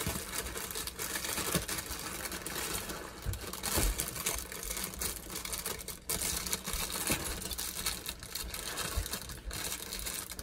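Rice Krispies cereal being poured out of its box and plastic liner: a steady rustle and patter of dry puffed rice with crinkling plastic.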